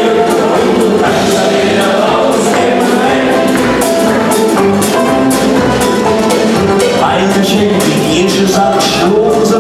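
A live band playing a song: several men singing together, backed by banjo and drums.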